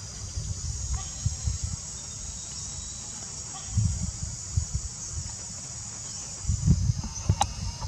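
Steady high-pitched drone of insects in the trees, under an irregular low rumble that grows loudest near the end, with one sharp click shortly before the end.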